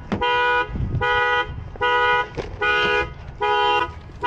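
Car horn sounding in a steady on-off alarm pattern, about five half-second blasts here: the car's anti-theft alarm going off during the lockout.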